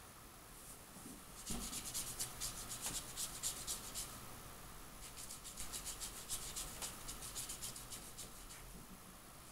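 Pentel Aquabrush water brush scrubbing blue watercolour back and forth over paper: quick scratchy strokes, several a second, in two spells with a short pause between.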